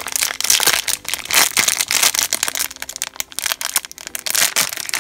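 Foil blind-bag wrapper crinkling as it is handled and torn open by hand: a dense, continuous run of sharp crackles.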